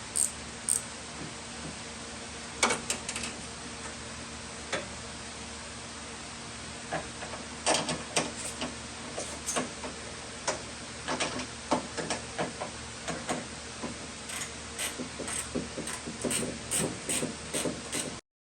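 Metal clicks and knocks of door-lock hardware and tools being worked inside a Ford Mustang II door, over a steady hiss. The knocks are scattered at first and come thick and fast in the second half, then everything cuts off suddenly just before the end.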